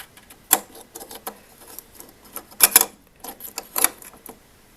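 Small metallic clicks and rattles as spare phonograph needles and their holder are handled, a few sharper taps among lighter ticks.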